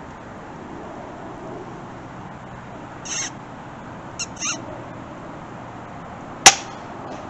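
Three short, high squeaks made by the hunter to get a feeding rabbit to lift its head, over a steady low outdoor hiss. About two seconds later comes a single sharp crack, the loudest sound: the shot of a Daystate Red Wolf pre-charged air rifle.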